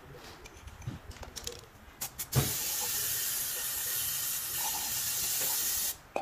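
Aerosol spray can hissing in one steady blast of about three and a half seconds onto a metal oil filter housing cap, starting a little over two seconds in and cutting off sharply near the end. A few light taps of handling come before it.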